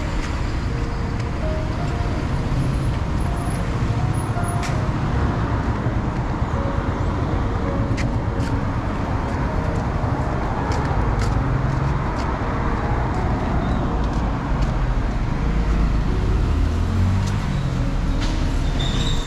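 Street traffic noise: engines of passing cars and buses running in a steady low rumble. About fifteen seconds in, one vehicle's engine falls in pitch as it goes by.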